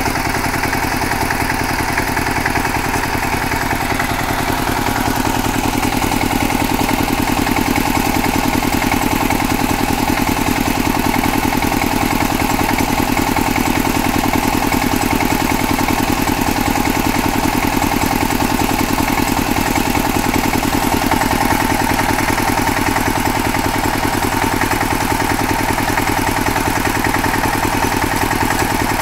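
KAMCO power tiller's single-cylinder diesel engine running steadily with a fast, even thudding beat, getting slightly louder about five seconds in.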